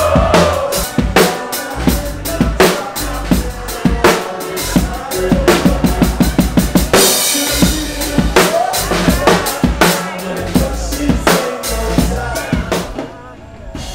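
Live band playing with the drum kit loudest: steady kick and snare hits, a quick run of drum hits past the middle followed by a cymbal crash, and a voice singing over the music now and then. The music drops away near the end.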